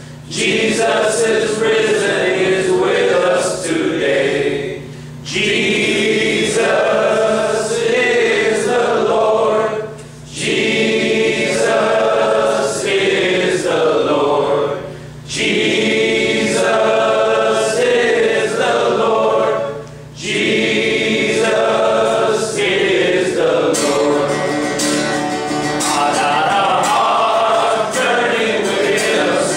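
A roomful of men singing a worship song together to an acoustic guitar, in phrases broken by short pauses about every five seconds.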